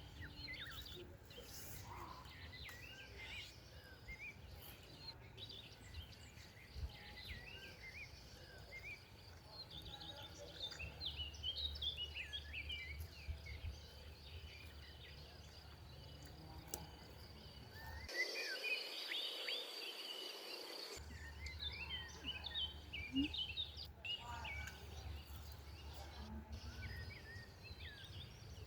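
Outdoor ambience of many small birds chirping and calling over a steady high insect drone, with a low background rumble.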